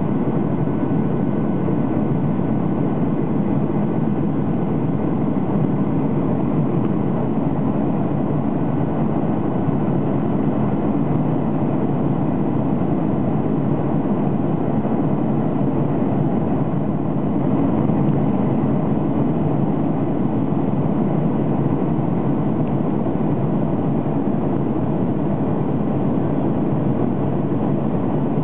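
Steady cabin noise of a Boeing 737 airliner in flight: the even drone of its jet engines and the airflow around the fuselage, heard from inside the cabin, with a few faint steady whines above it.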